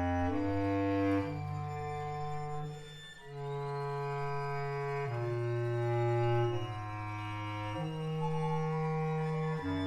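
Music: slow, sustained chords over a low bass note, changing every one to two seconds.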